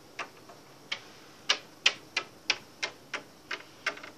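Small plastic toy figure tapped along a wooden ledge: a run of sharp clicks, coming faster, about three a second, in the second half.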